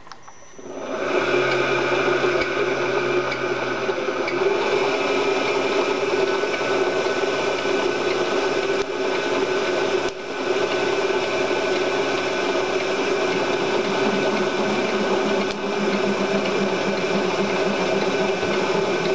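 Vertical milling machine starting up about a second in and then running steadily, its spindle turning a boring head that bores out a hole in an aluminium block under the quill's automatic feed; a steady motor whine.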